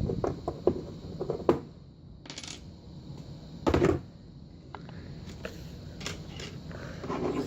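Small metal clicks and clinks from a Sargent six-pin lock cylinder being taken apart by hand, its metal parts tapping together and against a hard surface. A quick run of clicks in the first second and a half, two short rattles around two and a half and four seconds in, then scattered single clicks.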